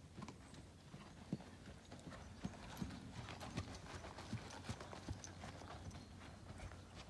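Hoofbeats of a horse being ridden through a dressage test, a run of repeated clip-clop knocks.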